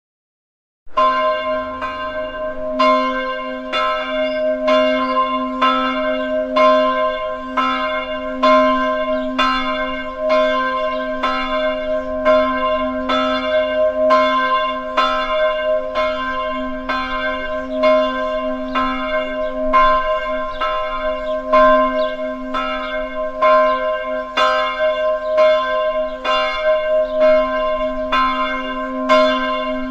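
A large bell tolling, struck again and again in a steady, even rhythm, its ring sustaining between strikes. It starts about a second in.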